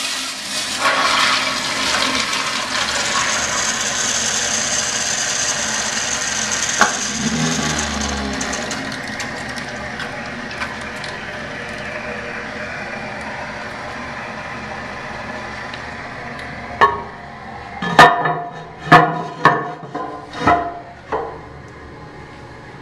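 Mansfield toilet flushing: a sudden rush of water that slowly tapers off over about fifteen seconds as the tank drains and refills. Several hard knocks follow near the end.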